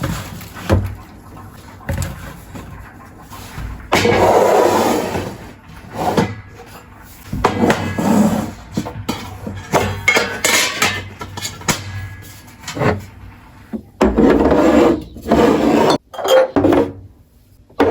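Storage containers and jars being handled: a run of knocks and glassy clinks as they are picked up and set down, with a few longer rushing stretches, one about four seconds in and two more near the end.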